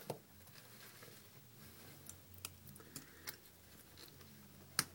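Faint clicks and taps of an iPhone 2G's battery and housing being handled and lifted by hand, a few scattered light ticks with one sharper click near the end.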